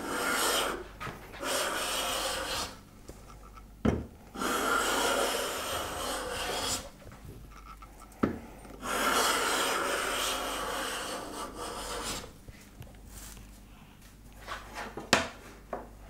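Steel hand plane taking shavings along a thin wooden strip: about four hissing, scraping strokes, the later two longer, with a few sharp knocks between passes. The plane is taking down the crown, the slightly thicker middle of the strip.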